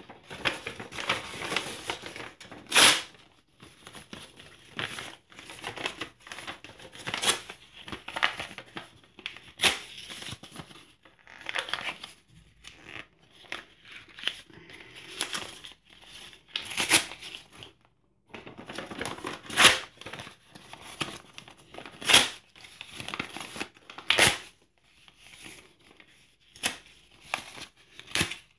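Printed paper documents and newspaper being torn by hand and shuffled: irregular rustling and crinkling of sheets, broken by sharp ripping tears, several of them louder than the rest.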